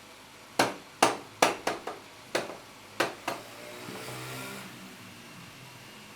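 About eight sharp knocks in quick, uneven succession, then a short swell of hiss with faint shifting tones.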